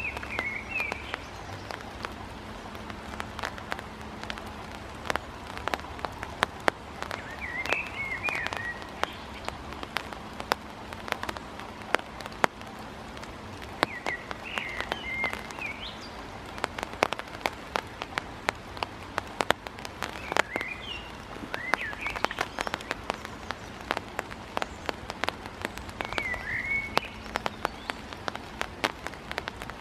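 Great tit's beak pecking at a large hawk-moth caterpillar on sandy ground: many sharp, irregular taps and clicks. A small bird gives a brief chirping call every six or seven seconds.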